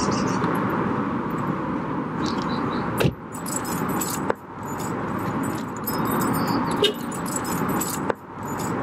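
Steady outdoor background noise with faint bird chirps, and a car door shutting once with a sharp knock about three seconds in.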